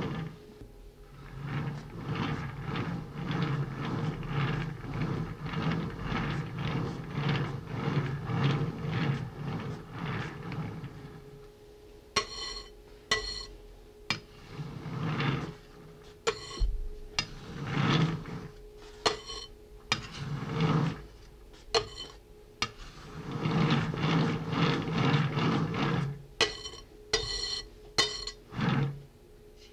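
Cake-decorating turntable turned by hand while a spatula smooths whipped-cream frosting: a run of quick, even rubbing strokes for about the first ten seconds, then scattered short scrapes and light clicks.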